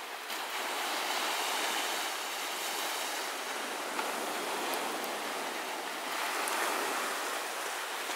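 Small waves breaking and washing onto a sandy beach: a steady rush of surf that swells twice.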